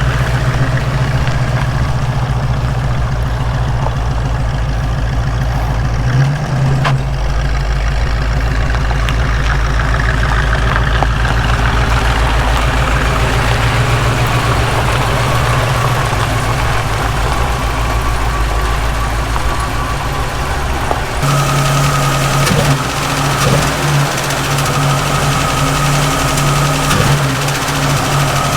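1967 Ford Mustang engine idling steadily, running smoothly on its reassembled carburetor after a clip was fitted to keep the float from flooding it. About two-thirds of the way through the sound turns brighter and a thin steady whine comes in.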